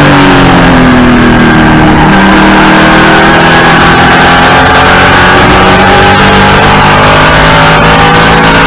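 Race car engine at racing speed, heard from inside the cockpit, very loud. Its pitch falls over the first two seconds as the car comes off the throttle, then climbs steadily as it accelerates.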